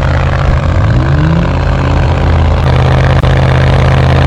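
Off-road vehicle engine running hard at high revs, close and loud, with a rising note about a second in and easing off at the very end.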